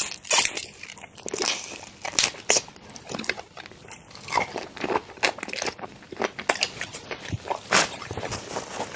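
Biting and chewing through a shell-on crustacean, with many sharp, irregular crunches and crackles of shell.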